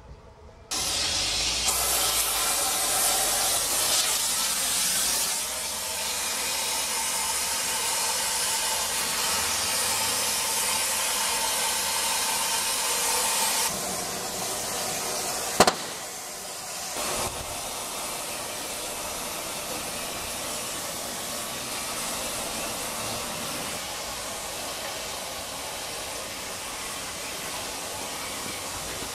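A loud, steady hiss that starts abruptly about a second in and carries on throughout, dropping a little in level twice, with a single sharp click past the middle.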